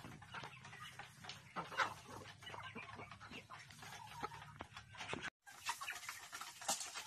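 A flock of chickens clucking as they feed, mixed with many short clicks. The sound drops out for a moment about five seconds in.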